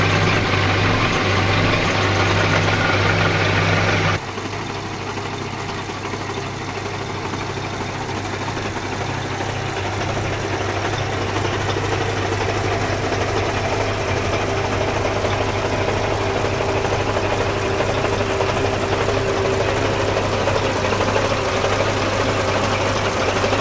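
Scania R 420 truck's straight-six diesel engine idling steadily. The sound drops abruptly about four seconds in, then slowly grows louder.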